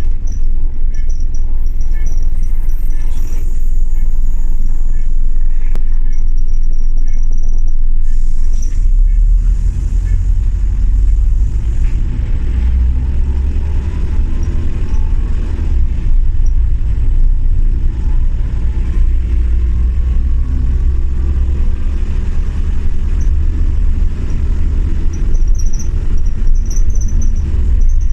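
Single-deck bus's diesel engine and tyre noise heard from inside the saloon as it drives along, a deep steady rumble. A faint whine rises slowly through the middle.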